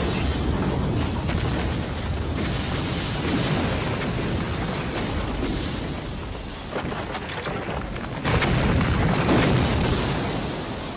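Staged special-effects explosions blowing apart a film-set building, a continuous heavy blast of fire and debris with a fresh explosion about eight seconds in that then slowly dies down.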